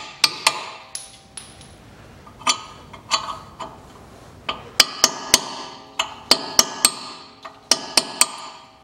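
About twenty sharp metal-on-metal taps in irregular groups of two to four, each ringing briefly: a hammer driving a tool against a disc brake caliper bracket to knock out the old guide-pin dust boots.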